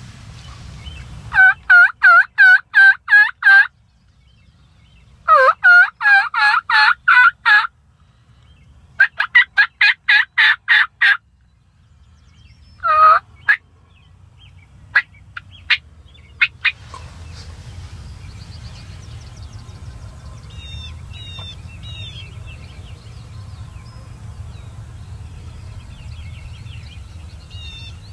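Turkey yelping: three loud runs of seven or eight evenly spaced yelps, then a single yelp and a few sharp clucks. Faint songbird chirps follow over a low rumble.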